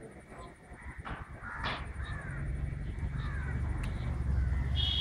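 Crows cawing several times, short harsh calls, over a low rumble that builds up from about a second and a half in.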